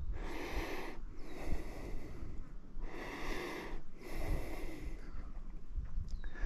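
A man breathing heavily close to the microphone: a series of rushing breaths in and out, each about a second or so long, with short pauses between them.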